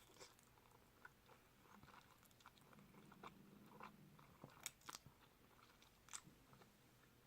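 Quiet close-up chewing of spicy instant noodles and rice cakes, with scattered soft wet mouth clicks and a few sharper ones a little past the middle.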